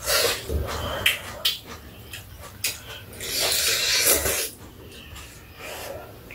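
Slurping of ramen noodles: a run of short, noisy slurps, the longest and loudest about three to four seconds in.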